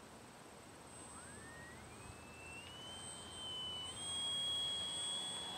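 Electric motor and propeller of a radio-controlled model plane whining, the pitch rising smoothly over about three seconds and then holding steady as it grows louder and nears.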